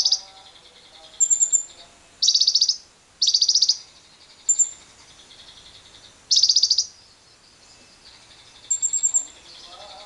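Lovebird chattering in short bursts of rapid, high chirps, each under a second long, about six times with pauses between.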